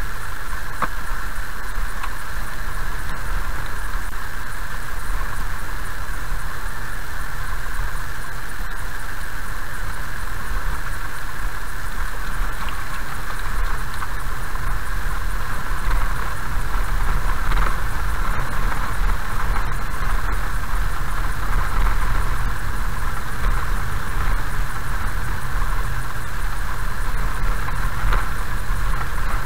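A car driving slowly on a gravel road, heard from inside: a steady low rumble from the engine and tyres under an even hiss of road noise.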